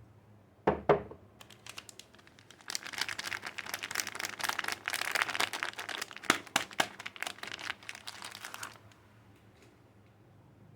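Soap packaging being handled and unwrapped: a couple of sharp knocks about a second in, then dense crinkling of the wrapper for about six seconds, which stops near the end.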